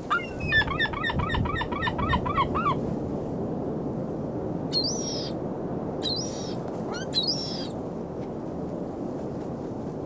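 Gulls calling: a rapid laughing run of about ten calls in the first three seconds, then three short, higher calls a second or so apart. A steady wash of surf runs underneath.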